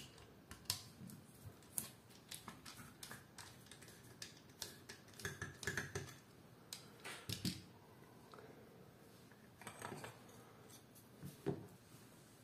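Faint, irregular clicks and taps of a screwdriver working the grip screw of a revolver loose, with the wooden grip panels being handled and laid down.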